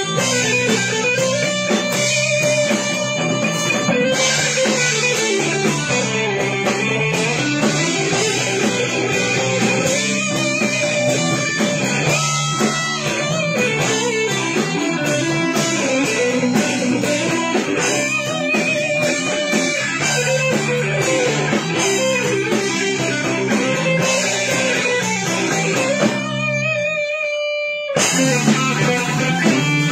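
A live rock band jamming: amplified electric guitars over a drum kit, with a melodic guitar line bending up and down. Near the end the drums and guitars drop out for about two seconds, leaving only a held note, then the band comes back in.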